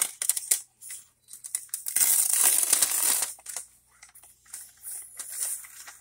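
Paper towel crinkling and tearing as it is peeled by hand off a microwave-baked tapioca and arrowroot starch brick, in many small crackles, densest from about two to three seconds in.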